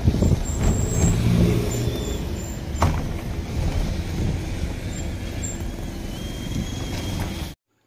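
Wind and road noise of a moving car, heard from an open window as a loud, steady rush, with one sharp knock about three seconds in. The sound cuts off suddenly near the end.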